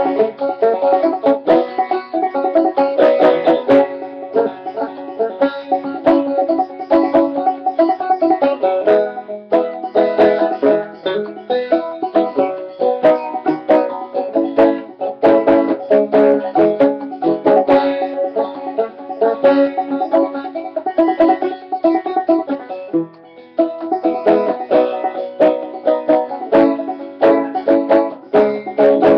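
Five-string banjo played clawhammer (frailing) style in sawmill tuning: a steady run of quick plucked notes of an old-time tune, with a brief dip in level about three-quarters of the way through.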